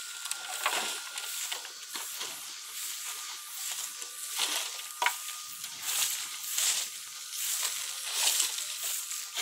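A shovel repeatedly scraping up dry weeds and loose soil from hard ground and dumping them into a metal wheelbarrow: a run of rustling, scraping strokes, with one sharp knock about five seconds in.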